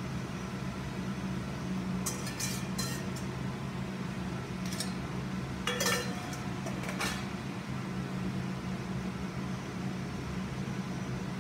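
Stainless steel mixing bowl and spatula clinking against a stainless sauté pan as stir-fry sauce is poured over the vegetables and stirred in, a few sharp clinks over a steady low hum.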